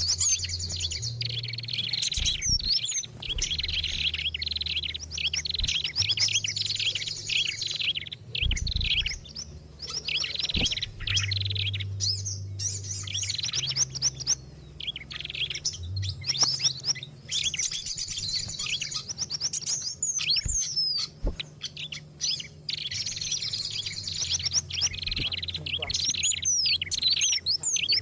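Bird-lure recording of several small songbirds calling together: dense, high-pitched rapid chirps and trills in bouts of a few seconds with short breaks, over a low hum. These are the noisy, agitated calls played to draw wild small birds in.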